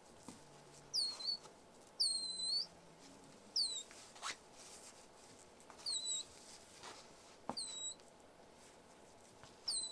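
Baby cinnamon capuchin monkey giving thin, high-pitched squeaky calls, six short calls a second or two apart, each dipping and rising in pitch. A couple of faint knocks from her climbing on the curtains.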